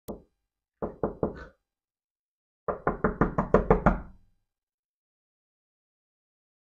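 Knocking on a door: a single knock, then three quick knocks about a second in, then a fast, louder run of about ten knocks.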